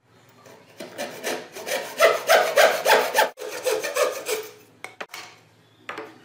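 Hand frame saw cutting through a block of hardwood, rasping back and forth at about three strokes a second, with a short pause partway through. Near the end a few light knocks.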